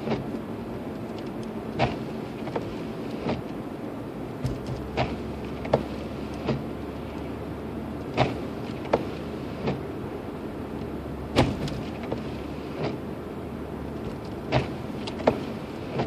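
Car cabin noise while driving on a packed-snow road: a steady rumble of tyres and engine, with sharp knocks or clicks coming every second or so at uneven intervals. A low hum joins in from about four seconds in until about eleven seconds in.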